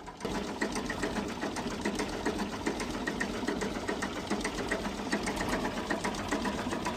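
An engine running with a fast, even mechanical clatter that starts abruptly about a third of a second in.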